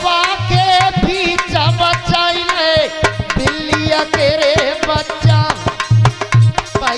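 A man singing a Hindi devotional barahmasi folk song with a wavering, ornamented voice, over a steady held tone and a regular hand-drum beat.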